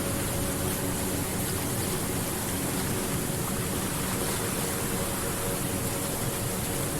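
Steady rushing of flowing water, an even wash of sound that does not change.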